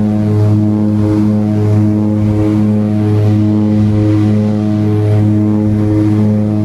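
Seaplane's propeller engine droning steadily in cruise, heard from inside the cabin, with a slow regular pulsing a little more than once a second.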